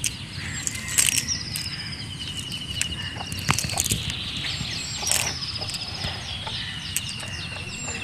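Cast net and small fish being handled on wet mud: rustling net mesh, soft clicks and slaps of fish, with a few louder crackles. Short, high, rapid trills repeat in the background every second or two.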